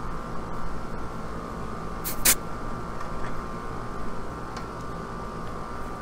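Outdoor R-410A air-conditioner condenser unit running with a steady hum and whine. About two seconds in comes a brief, sharp hiss as a refrigerant gauge hose is released from a service port.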